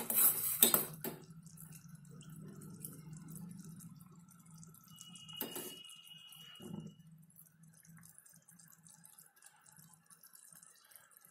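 Sugar syrup bubbling in a steel pot, with a steel spoon clattering against the pot in the first second, one ringing clink on the pot about five and a half seconds in and a softer knock just after. The syrup is boiling toward the one-string stage.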